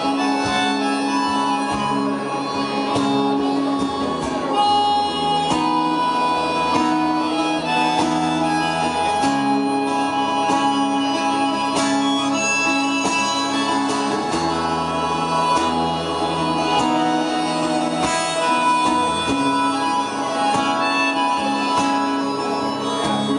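Live solo music: an acoustic guitar played through an effects pedalboard, with long held melody notes over low bass notes that change every second or two.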